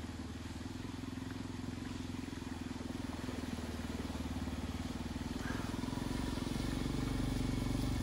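Motorcycle engine running steadily at low revs, getting slightly louder near the end.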